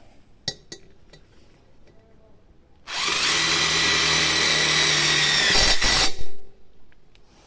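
Parkside PDSSA 20-Li A1 cordless impact driver, with a brushed motor, driving a self-tapping screw into 2.5 mm steel box section. It runs steadily at speed for about three seconds, hammers briefly as the screw seats, and stops. A few small clicks come before it.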